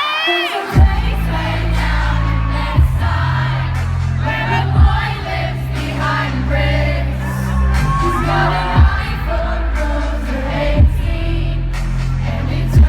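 Live pop concert music with a deep, sustained bass synth that comes in under a second in and a heavy hit about every two seconds, with a sung vocal line over it and the crowd audible underneath.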